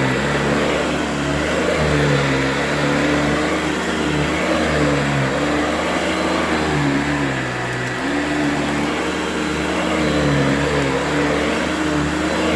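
Hoover Convertible U4345 upright vacuum running with its beater brush working a matted mat. The motor's pitch wavers up and down every couple of seconds as the load on it changes, and dips briefly about two-thirds of the way through.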